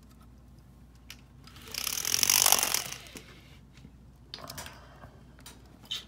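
Horizontal window blinds being pulled up, the slats clattering together for about a second and a half, then a shorter rattle and a sharp click near the end.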